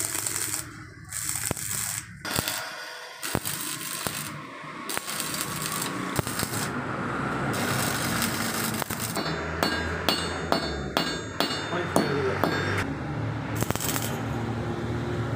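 Arc welder crackling and hissing in short on-and-off runs while steel scrollwork is tack-welded into a gate frame, with sharp metallic clicks and taps between the runs.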